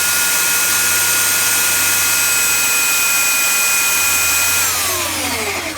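Belt sander, clamped to a board as a table sander, running at full speed with a steady whine over a loud rush. About a second before the end it is switched off and winds down, its whine falling in pitch.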